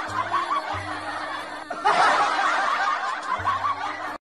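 A snickering laugh sound effect, played twice in a row, over background music with a steady low bass note.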